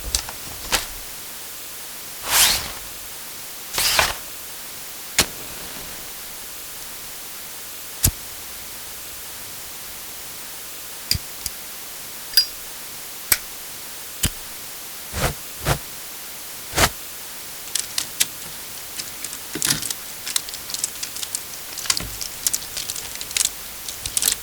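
A run of short sharp clicks and brief knocks and rustles from small household objects being handled, a few seconds apart at first and then quick and irregular near the end, over a steady hiss.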